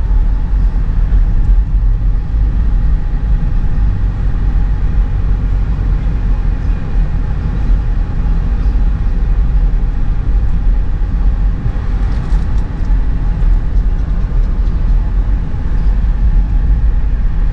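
Car driving along an unsealed bush track: a steady, loud low rumble of engine and tyres, with a few light knocks and rattles about twelve seconds in.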